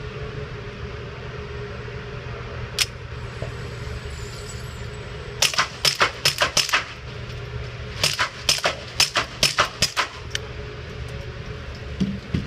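Suppressed .22 rimfire shots from a Ruger SR22 pistol fitted with a Dead Air Mask HD22 suppressor: a single shot, then two rapid strings of semi-automatic fire, about four shots a second, each shot a short sharp crack.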